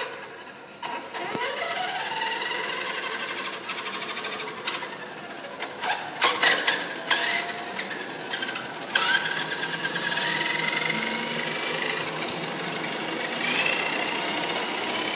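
Small electric motors of toy cars whining and rising in pitch as they speed up, several times over, with a few sharp clicks and clatters midway.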